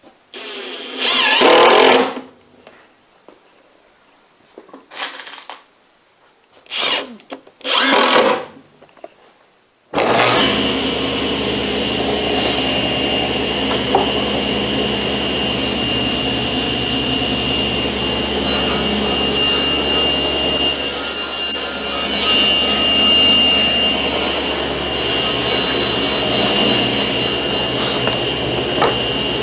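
Cordless drill driving screws into a plywood crosscut sled in about five short bursts. About ten seconds in, a steady machine noise with a high whine starts abruptly: the table saw running.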